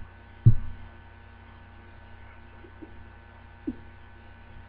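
Steady electrical mains hum with a few faint steady tones above it. About half a second in there is one sharp low thump, the loudest sound, and later a few faint short blips.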